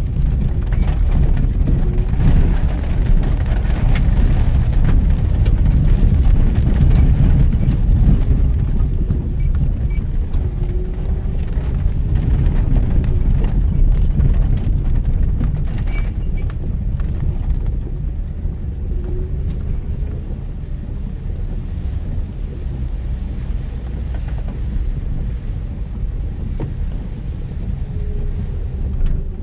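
Mitsubishi Pajero Mini kei 4x4 driving on a rough forest road in heavy rain: a steady low rumble of engine, tyres and rain, with scattered knocks, a little louder in the first half.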